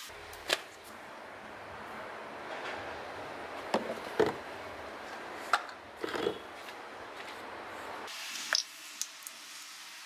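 Hands handling small parts and plastic bottles: a scattering of light knocks and clicks over a steady hiss.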